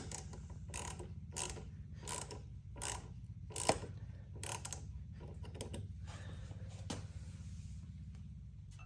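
Socket ratchet wrench clicking in repeated strokes as an exhaust mounting bolt is tightened. The strokes come one every half second to second and thin out in the second half.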